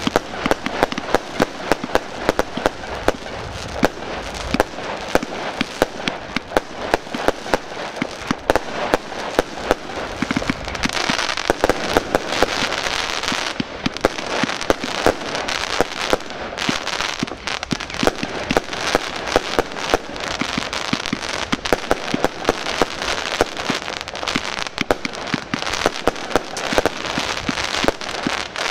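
Aerial fireworks bursting in a rapid, unbroken string of bangs over a steady crackle of exploding stars.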